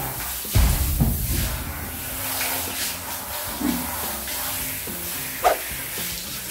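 Water spraying from a handheld shower head onto a husky's wet coat, a steady hiss. Two dull bumps come about half a second and a second in.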